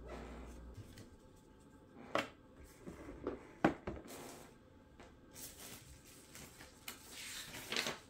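Paper and cardboard laptop packaging handled by hand: two sharp taps about two and three and a half seconds in, then a few seconds of paper rustling and sliding near the end.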